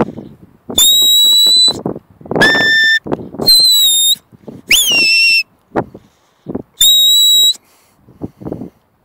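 Sheepdog handler's whistle giving five short commands: mostly steady high blasts, one lower note and one that jumps up and then drops, with bursts of low noise in between.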